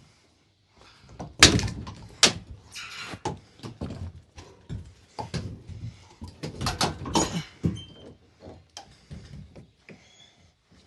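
Thin plywood crate lid being thrown down and handled: a run of wooden bangs and clattering knocks. The loudest come about a second and a half in, more clatter follows around six to seven seconds in, then fainter knocks.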